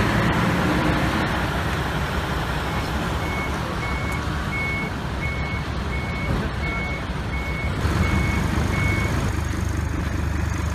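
A vehicle's reversing alarm beeping at an even pace, about ten short high beeps roughly two-thirds of a second apart, which stop near the end. Underneath is a steady low rumble of engines and traffic.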